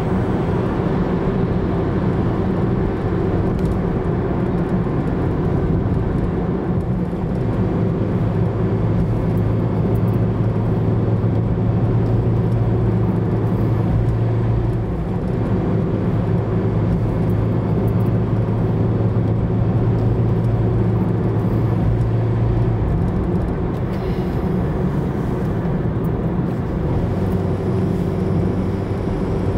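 Car driving at road speed, heard from inside the cabin: steady tyre and engine drone, with a low hum that comes in about a quarter of the way through and drops away near the end.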